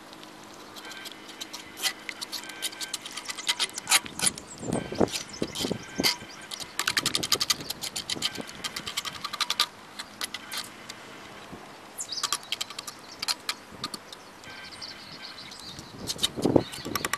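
A fork clinking and scraping against a metal skillet while eggs are stirred and scrambled in it, in irregular rapid bursts with a lull about ten seconds in.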